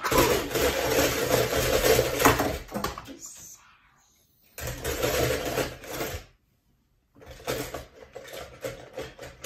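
Small die-cast toy cars clattering and rattling against each other in a plastic bowl as a hand rummages through them. It comes in three spells: a long one at the start, a shorter one about halfway through, and another near the end.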